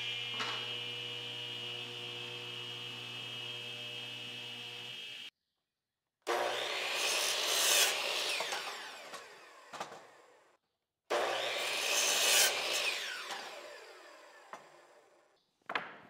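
A benchtop table saw's motor running steadily with the blade spinning, then two crosscuts through wooden boards on a DeWalt miter saw: each a loud burst as the blade bites into the wood, followed by a falling whine as the blade winds down. A sharp wooden knock near the end.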